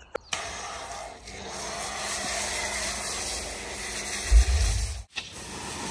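Pressure washer jet hissing steadily as it sprays down a removed tank engine, with a faint steady hum under it and a short low rumble about four seconds in.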